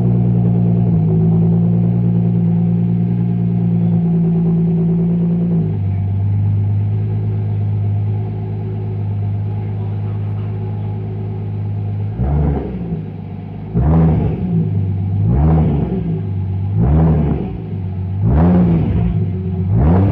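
Toyota Supra engine idling steadily, its idle speed stepping slightly a couple of times, then blipped in about six short revs, roughly one every second and a half. It is running after a radiator install while the cooling system is bled.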